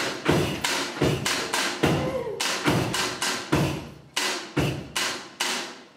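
Homemade pogo cello, a bouncing pole instrument with a cookie-tin body, wire string, cat-food-lid jinglers and jingle bells, thumped on the floor in a steady beat of about three strikes a second, each strike jingling. Its string gives a short falling twang about two seconds in, and the strikes fade near the end.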